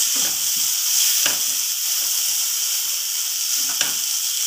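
Spiced fish-and-onion filling frying in oil in a non-stick kadai, giving a steady sizzle, while a wooden spatula stirs and scrapes through it a few times.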